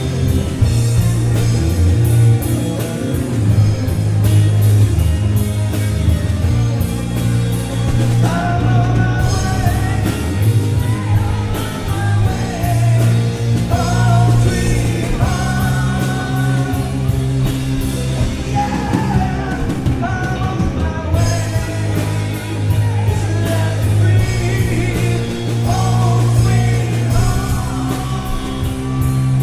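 Rock band playing live: bass guitar, electric guitar and drums. A woman's lead vocal comes in about eight seconds in and carries on over the band.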